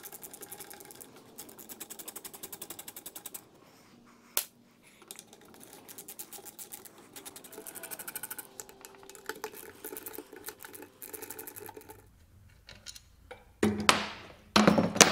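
Socket ratchet clicking in quick, even runs as it backs out the bolts holding the foot peg and side stand bracket to the bottom of a pit-bike engine. Near the end, a few loud metal knocks as the freed steel peg bracket is handled onto the steel bench.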